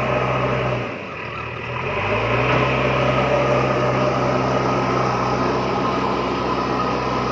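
Small motor of a homemade toy tractor running steadily under load as it tows a toy dump truck on a string. Its hum drops and sags in pitch about a second in, then climbs back up about a second later and holds steady.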